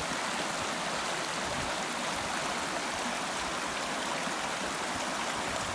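River water rushing steadily over its bed, heard close by as the hikers cross the river.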